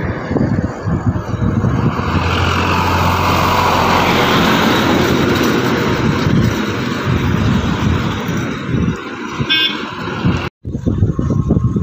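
Heavy tractor truck's diesel engine droning as it slowly hauls a long multi-axle trailer past, with a rising whine in the middle, tyre and road noise, and wind buffeting the microphone. A short vehicle-horn toot about nine and a half seconds in.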